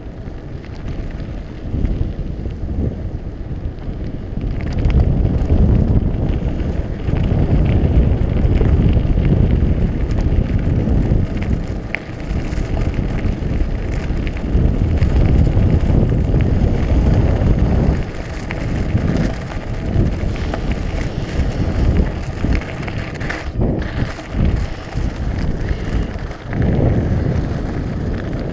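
Wind rushing over a chest-mounted GoPro's microphone as a mountain bike rides along a gravel path, with the tyres crunching and rumbling over the gravel.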